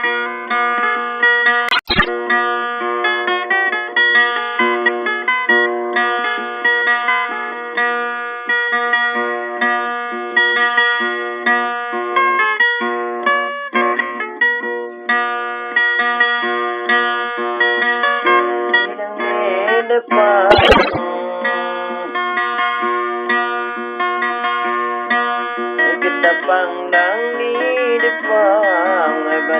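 Background music: an instrumental of plucked guitar notes, with bending, wavering notes in the second half. Two short clicks cut through it, about two seconds in and about two-thirds of the way through.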